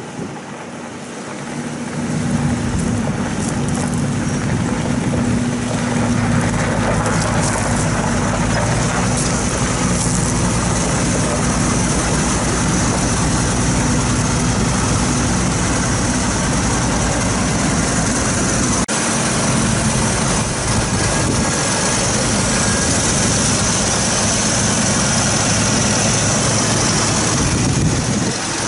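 1980 Jeep's gasoline engine running as the Jeep pulls up over gravel, then idling steadily close up. The sound grows louder about two seconds in and then stays level.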